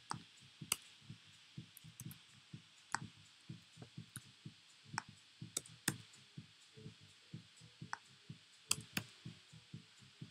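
Computer keyboard and mouse in use: soft, low key thumps several times a second in an uneven typing rhythm, with a handful of sharper clicks scattered through.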